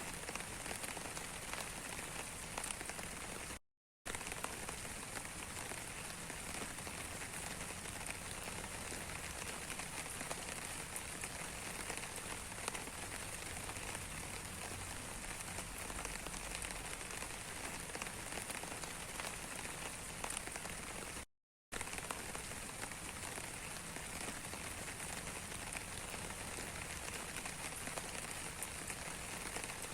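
Steady rain falling, an even hiss flecked with the patter of individual drops. The sound cuts out completely for a fraction of a second twice: about four seconds in and again about twenty-one seconds in.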